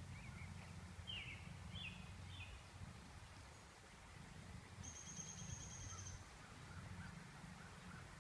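Faint outdoor ambience of wild birds: three quick descending chirps about a second in, then a high, even trill lasting about a second near the middle, and scattered soft chirps after. Under them runs a low, steady rumble.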